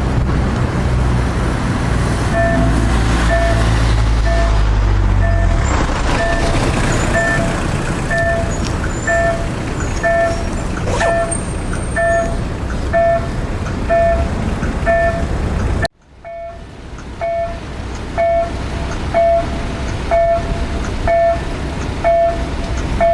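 KLD-4101 level-crossing warning bell sounding its clipped, cut-off tone: short identical beeps at about one and a half a second. For the first few seconds a loud low vehicle rumble runs under it, and the sound breaks off abruptly about two-thirds of the way through before the beeps resume.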